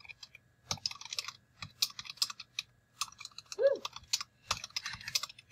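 Typing on a computer keyboard: irregular runs of quick key clicks as words are typed. One short pitched sound rises and falls about two thirds of the way through.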